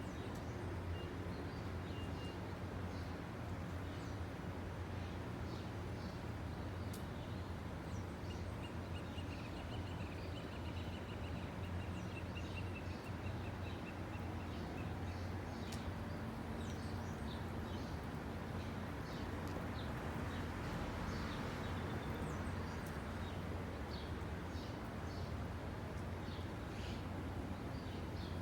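Outdoor ambience: birds chirping and calling over a steady low rushing rumble, with a warbling trill partway through.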